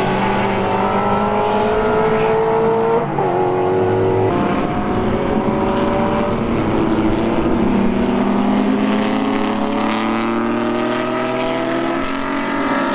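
Racing car engines under hard acceleration, the pitch climbing steadily and repeatedly as they pull through the gears. About four seconds in a different engine takes over: a historic front-engined single-seater racing car accelerating out of a corner.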